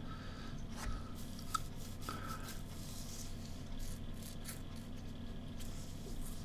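Faint handling of a computer mouse: a few soft clicks and light rubbing as it is slid and clicked, over a steady low electrical hum.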